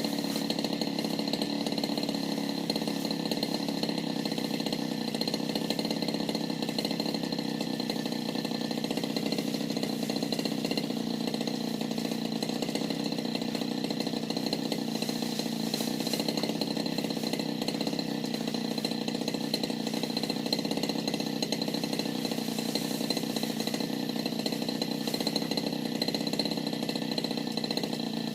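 Petrol brush cutter (grass cutter) engine running steadily at speed, working through patchouli plants.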